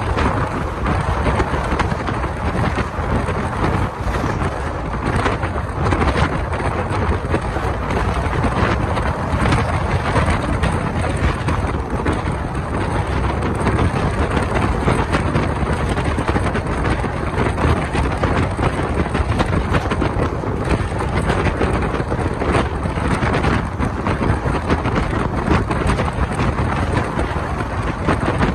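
Wind noise on a microphone held out of a moving passenger train's coach window, over the steady rumble of the coach's wheels on the rails.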